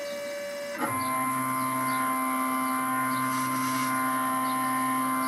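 Stepper motors of a CNC-converted Boxford lathe whining steadily as they drive the carriage and cross slide back to the home position. About a second in the whine changes to a lower, fuller tone and then holds steady.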